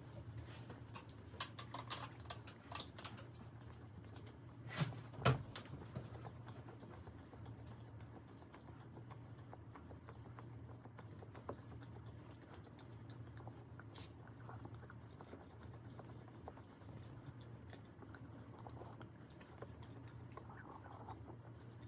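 A dog nosing and mouthing a Planet Dog Snoop treat-dispensing ball to get food out of it, making scattered light clicks and taps. Two louder knocks come about five seconds in, and the taps thin out after that.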